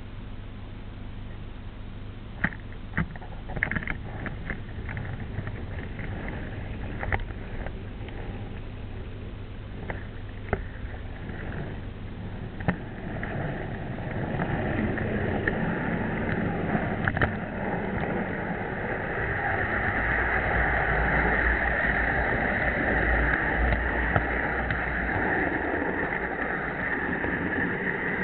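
Jouef model train running on its track, heard from a camera riding on one of the wagons: a low steady hum with scattered sharp clicks of the wheels over the rails, then a rolling rumble that grows steadily louder from about halfway through.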